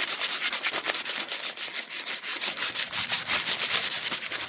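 Rapid back-and-forth scrubbing on a freshly nickel-plated steel bike sprocket, rubbing the plating residue off its surface in quick, even strokes.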